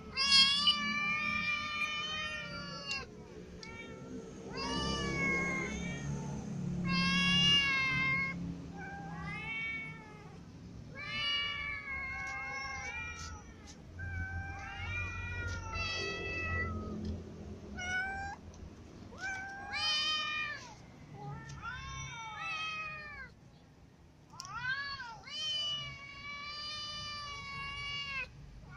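Cats meowing over and over: a string of drawn-out calls that rise and fall in pitch, one after another with short gaps.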